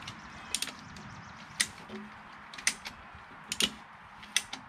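Ratchet strap being cranked tight in slow strokes, its pawl clicking once or twice about every second. The strap is drawing the excavator's front idler wheel in and pushing the track-adjuster piston back so that grease is forced out.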